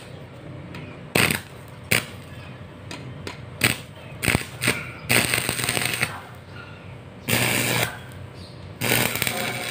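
Stick welder striking an arc on a steel pipe joint. A few short crackling pops, then bursts of crackling arc sizzle about half a second to a second long as the rod lays tack welds.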